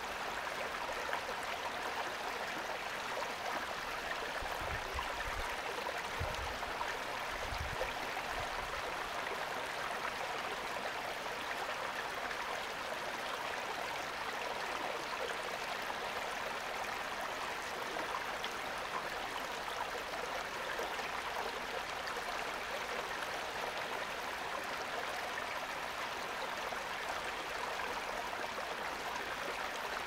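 Small waterfall pouring steadily into a stream, an even rush of falling water. A few brief low bumps come about five to eight seconds in.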